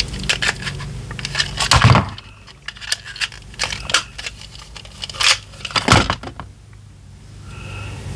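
Plastic clicks and rattles from handling a pistol-grip toy RC car remote and working open its battery compartment, with two louder knocks about two seconds and six seconds in.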